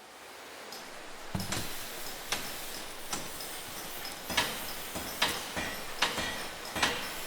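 Sharp knocks repeating at an even pace, about one every 0.8 s, over a steady hiss that fades in at the start.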